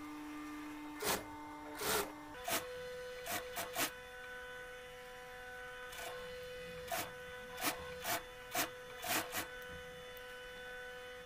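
Industrial sewing machine stitching corduroy in about a dozen short bursts of a few stitches each, stopping and starting as a curved seam is fed through, over a steady hum.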